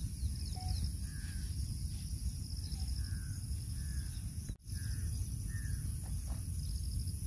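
Outdoor rural ambience: a steady high-pitched drone of insects with short bird calls every second or so over a low rumble. The sound drops out for an instant a little past the middle.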